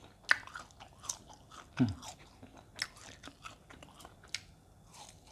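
Close-up chewing of latiao, chewy spicy strips made from fried tofu skin: irregular wet mouth clicks and smacks rather than crunching. A short falling hum of the voice comes about two seconds in.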